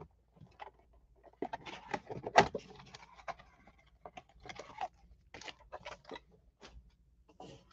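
A 2019-20 Clearly Donruss basketball card box being opened by hand: irregular scraping, clicks and rustles of cardboard and packs, with one sharper snap about two and a half seconds in.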